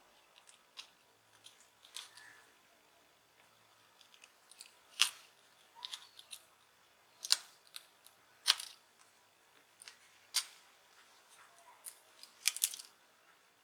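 Small sharp clicks and taps, irregularly spaced with a handful of louder ones, from tools and parts being handled while a Redmi smartphone's main board is worked free during disassembly.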